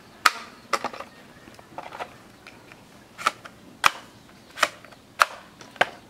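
Hard plastic toy guns clacking against one another as they are picked up and set down: a string of sharp clacks, uneven at first, then five louder ones about two-thirds of a second apart.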